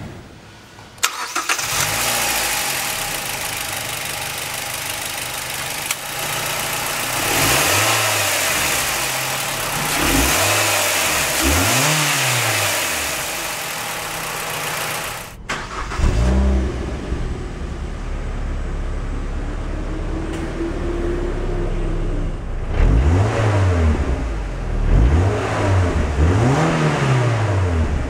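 2010 Mazda MX-5's 2.0-litre four-cylinder engine idling and being revved in a few short blips, first heard at the engine bay. After a sudden cut about 15 seconds in, it is heard deeper and louder at the exhaust tailpipe, with a run of quick revs near the end.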